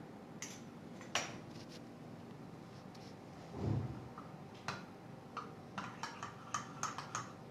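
Metal spoon stirring batter in a glass bowl: a few light taps early, a low dull thump about halfway, then a quick run of light clinks of the spoon against the glass.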